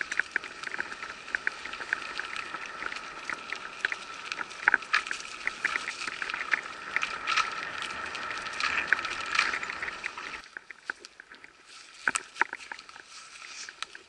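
Mountain bike riding down a dirt forest trail: tyre noise with a rapid run of rattling clicks and knocks from the bike over bumps and a steady high whirr. About ten seconds in it drops suddenly to a much quieter background with a few scattered clicks, the bike stopped.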